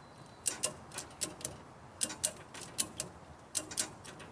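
Ratchet tie-down strap being cranked tight: sharp metallic clicks, mostly in pairs, about five pairs at a steady pace, as the strap pulls the electric dirt bike down on its suspension.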